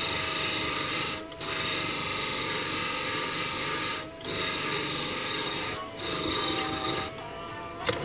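Mini lathe running with a steady motor hum, and a loud rasping scrape from something held against the spinning work. The scrape comes in four stretches with brief pauses between them. A single sharp click comes near the end.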